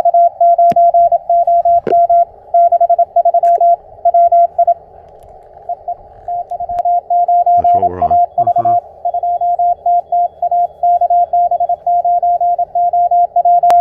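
Morse code (CW) signals from a ham radio receiver: a single steady-pitched tone keyed on and off in dots and dashes over a narrow band of receiver hiss. A brief voice cuts in about eight seconds in.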